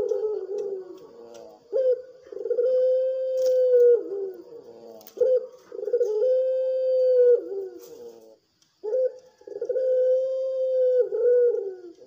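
Puter pelung dove, a long-voiced Barbary dove strain, cooing: long drawn-out coos, each with a stuttered opening, a long held note and a wavering fall at the end. The first coo is already under way at the start; three more begin at intervals of about three seconds.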